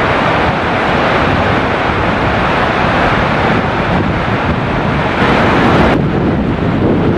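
Steady rushing noise of heavy rain and wind buffeting the microphone. The hiss thins out abruptly about six seconds in.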